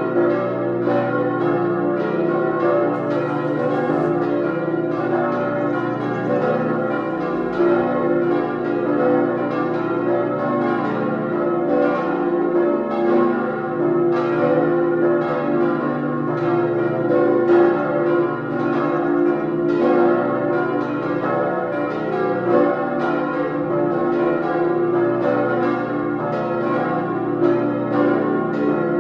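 Full peal of cast steel church bells swinging and ringing together, their strikes overlapping continually with a long ring.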